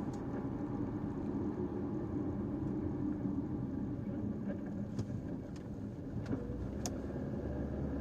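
Caoa Chery Tiggo 5x SUV on the move: steady engine hum and road noise, with four sharp clicks about 0.6 s apart in the second half and a deeper low rumble coming in near the end.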